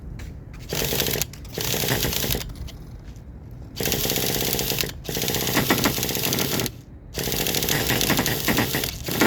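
Traxxas T-Maxx 2.5 nitro engine being cranked over by its starter in five separate bursts of fast rattling, each from half a second to nearly two seconds long, trying to get the rebuilt engine to fire.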